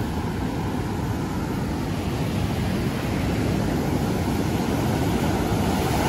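Heavy surf breaking and washing up a beach, with wind blowing across the microphone: a steady, deep rushing noise.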